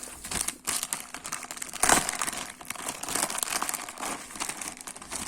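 Packaging crinkling and tearing as a magazine package is opened by hand, with one louder rip about two seconds in.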